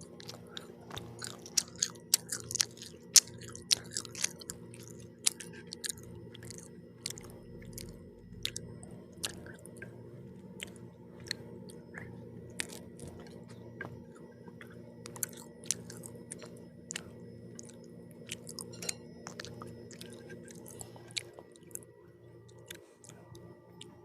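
Close-up chewing and biting of pizza, with many sharp, wet clicks and crunches of the mouth, thickest in the first few seconds.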